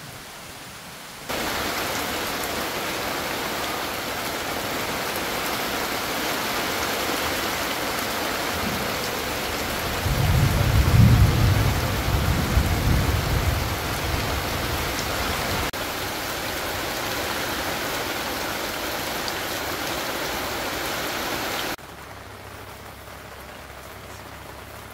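Heavy rain falling steadily, cutting in suddenly about a second in and cutting off suddenly near the end, with a low rumble of thunder about ten seconds in that lasts several seconds.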